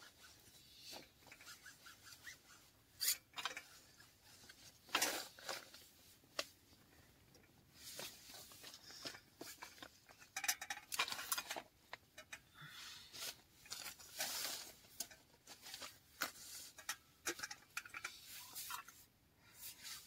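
Rustling and scraping of a cloth wiping up spilled coffee on a tent floor, in irregular short strokes with a few light knocks and clinks among them.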